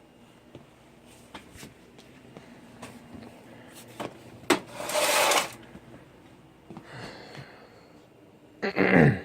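Computer hardware being handled: scattered clicks and knocks, a loud scraping noise lasting under a second about five seconds in, and a louder knock and scrape near the end.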